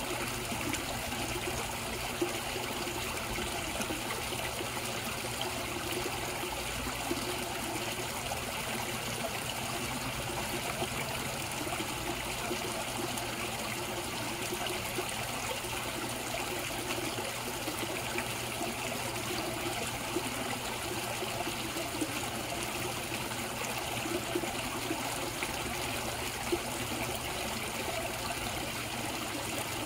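Water in a koi pond trickling and splashing steadily, without a break.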